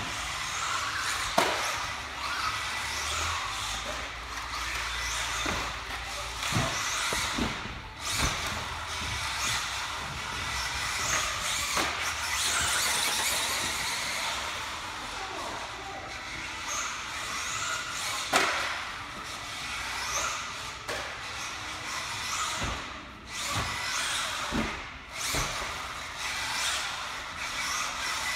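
Team Durango DEX410 V5, a 1/10-scale four-wheel-drive electric RC buggy, driving on a dirt track: a steady high whine and hiss from its motor, drivetrain and tyres, broken by a few sharp knocks.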